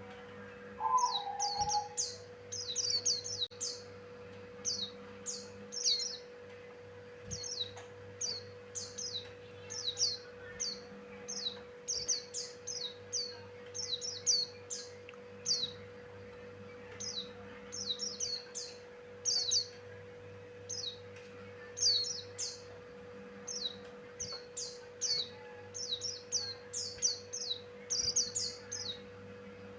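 Javan grey-throated white-eye (opior jawa, the 'pleci buxtoni') singing: fast runs of high, short, downward-sliding chirps in quick phrases with brief pauses between them, over a steady low hum.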